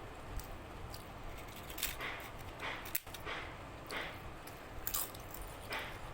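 Close-up wet chewing of a mouthful of rice and curry, a squishy smack roughly every second with small mouth clicks.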